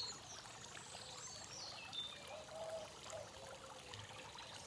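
Steady trickling and splashing of water from a tiered stone garden fountain, with a few faint bird chirps.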